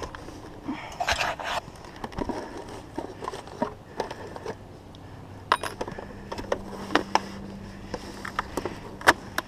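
Hands working in a metal gutter and its galvanized gutter guard, pulling at a squirrel nest of cushion stuffing: scattered sharp metallic clicks and scrapes, with a brief rustle about a second in.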